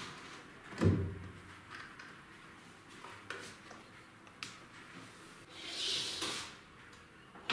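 Handling noises on a wooden crosscut sled: a knock about a second in, a few light clicks, and a short sliding scrape around six seconds in as a stop block is slid along the fence's aluminium T-track.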